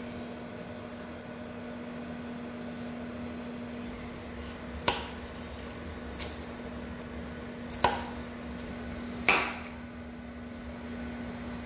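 Kitchen knife cutting through vegetables and knocking against a plastic cutting board: four sharp chops spaced one to two seconds apart, the second one faint. A steady low hum runs underneath.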